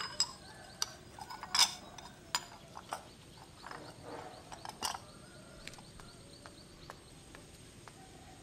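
Crockery being cleared from a wooden table: a bowl and dishes clinking and knocking in scattered sharp clicks, loudest about a second and a half in and again near five seconds.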